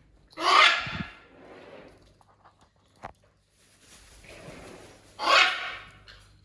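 Two loud, harsh animal calls, the first about half a second in and the second about five seconds later, with a single short click between them.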